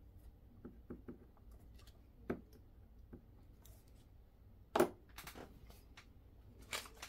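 Scattered light clicks and taps of small items being handled on a desk, with a sharper knock about two seconds in and the loudest knock about five seconds in.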